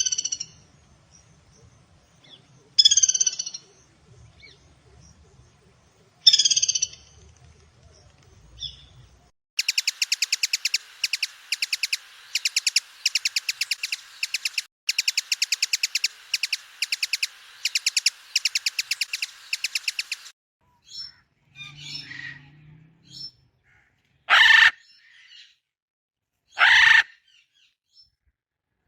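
Recorded bird calls from several different birds in turn: three separate short calls about three seconds apart, then a long, fast, evenly pulsed trill lasting about ten seconds, then a few shorter harsh calls.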